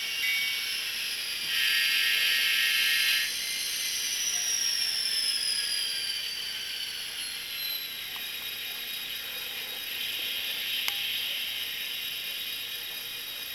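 Soundtraxx TSU-750 Tsunami decoder playing EMD 645 diesel locomotive sounds through a tiny speaker, thin with almost no bass. A horn blast of about a second and a half comes near the start, then the prime mover runs on with a high whine that slowly falls in pitch.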